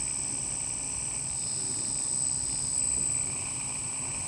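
Holmes Hobbies Torquemaster Pro 27-turn brushed motor running at steady throttle: a constant high whine over a low hum. Its tone shifts a little about a second and a half in as the endbell is rotated to change the motor timing.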